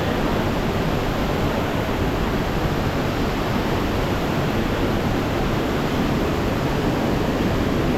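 Steady, loud rushing of flowing water, an even noise with no breaks.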